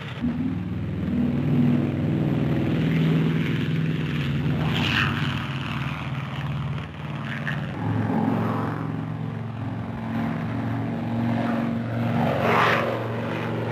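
Piston engines of a propeller-driven monoplane running steadily at power as it takes off and flies over, a low drone whose pitch changes about eight seconds in.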